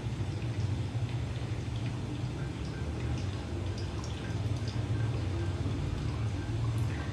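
Hot water poured in a thin, steady stream from a gooseneck kettle onto ground coffee in a V60 paper filter, a soft trickle with faint drips: the second pour after the bloom. A low steady hum runs underneath.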